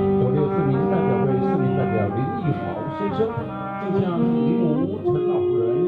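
Trumpet and saxophone playing a melody together live, with several held notes and moving lower lines beneath.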